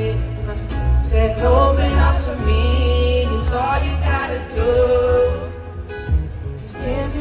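Male pop singer singing live into a handheld microphone over a backing band with a heavy bass line, amplified through a concert sound system. The music drops back briefly about six seconds in, then picks up again.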